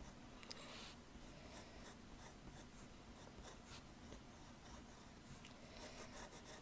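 Graphite pencil scratching on paper in a series of short, faint strokes as details on a drawing are sketched and shaded.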